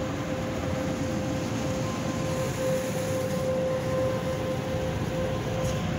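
Automatic car wash spraying water over the car, heard from inside the cabin: a steady rushing hiss of water on the roof and glass with a steady machine hum under it.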